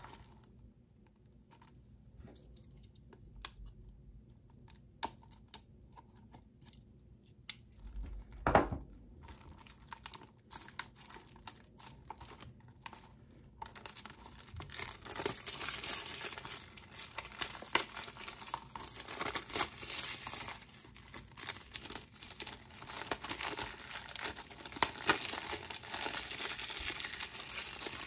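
Plastic shrink-wrap on a Blu-ray case being picked at with fingers, with scattered clicks and a dull thump about eight seconds in; from about halfway the film tears and crinkles continuously as it is peeled off.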